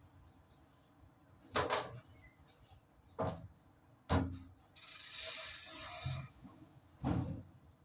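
Four separate metallic knocks and clanks from tools or parts being handled during truck clutch work, with a steady hissing rush of about a second and a half between the third and fourth knock.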